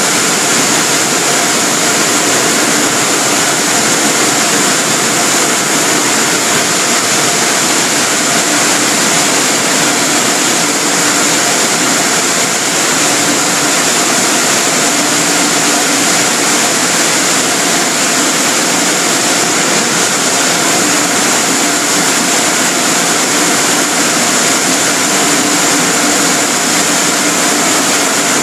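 Automatic tunnel car wash equipment running: a loud, steady roar with a few steady hums running through it.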